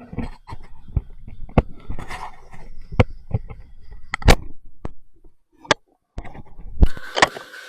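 A run of sharp, irregular knocks and clanks, then a steady mechanical hum starts near the end.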